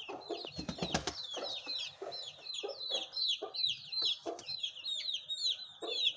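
Chicks peeping in a steady run of high, falling cheeps, about three a second, with short low clucks from a hen among them. A few sharp knocks come about a second in.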